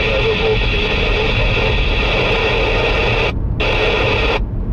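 Hiss and buzz from the in-car Thunderpole T3000 CB radio's speaker as its squelch opens on a noisy incoming signal. It drops out for a moment about three and a half seconds in, comes back, then cuts off shortly before the end. The car's low road and engine rumble runs underneath.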